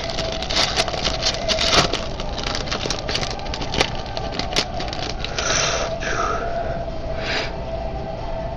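Foil booster-pack wrapper crinkling and trading cards being handled, many small crackles and clicks over the first half, then a few short swishes of cards sliding. A faint steady tone hums underneath.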